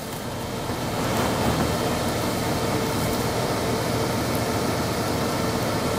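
2024 Toyota Tundra TRD Pro's twin-turbo V6 hybrid powertrain running as the truck crawls slowly over the trail. It grows louder over the first second, then holds steady.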